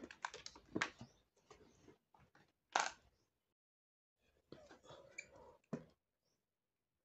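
Handling of a cardboard box and a hot glue gun: scattered clicks, taps and rustles in two short clusters, the sharpest tap about three seconds in.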